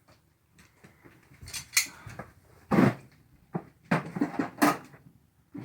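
Scattered sharp clinks and knocks of small hard objects being handled, about half a dozen in a few seconds.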